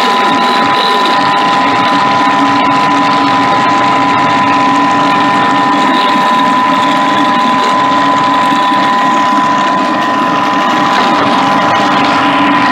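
Thermomix food processor motor running steadily at speed 5, a loud, even whine with a few held tones. Its blades are whipping butter and pudding into a cream.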